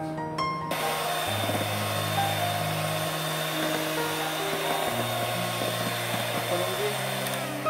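Electric hand mixer switched on under a second in, running steadily with a motor whine as its beaters whip cream with sugar, and switched off just before the end. Background music plays underneath.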